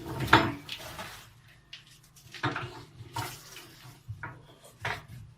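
Hard objects clattering and knocking against each other several times while something heavy is shifted and handled, the loudest knock about a third of a second in.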